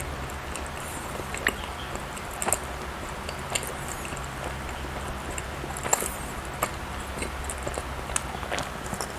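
Close-miked chewing and mouth sounds of a person eating soft bread and cake: scattered small wet clicks over a steady low hum.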